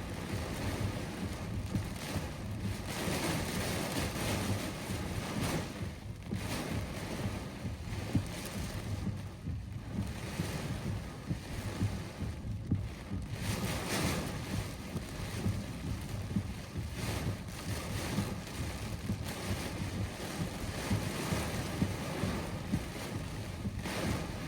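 Strong gusting wind and heavy rain in a severe thunderstorm, a continuous rushing noise that swells and eases every few seconds, with wind buffeting the microphone.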